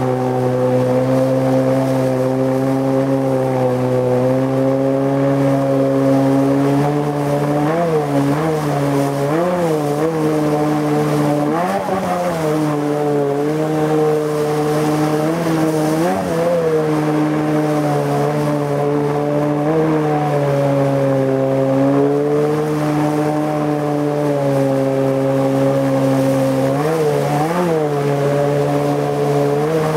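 Tohatsu M50D2S 50 hp two-stroke outboard with a water-jet unit running hard under load, pushing the boat upstream through a shallow rapid. The engine note holds steady, with its pitch briefly jumping up and back down several times.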